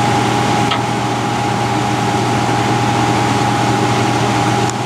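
Excavator's diesel engine idling steadily, a constant hum with a steady whine over it.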